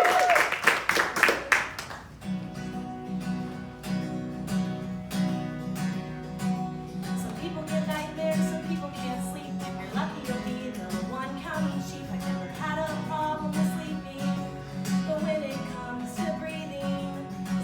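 Audience cheering and clapping dies away over the first two seconds. Then an acoustic guitar plays a song intro with a steady, even rhythm in the bass notes.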